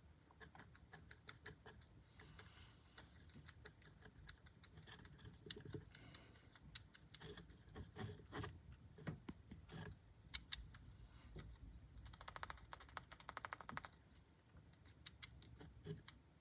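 Syrian hamster gnawing on a bone: faint, irregular crunching clicks of its teeth on the bone. About three quarters of the way through, the clicks come in a fast run for about two seconds.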